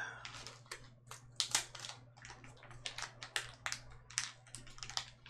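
Crinkly plastic snack wrapper being worked open by hand around a chocolate wafer bar, a quick irregular run of sharp crackles.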